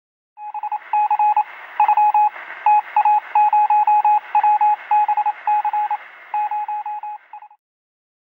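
Morse code sound effect: a single steady tone keyed on and off in short and long beeps over a band of radio static hiss, starting about half a second in and stopping shortly before the end.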